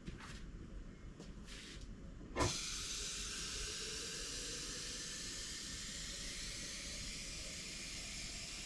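A tap is turned on with a sharp clunk about two seconds in, then water runs steadily from it into a glass jar, with a faint tone slowly rising as the jar fills.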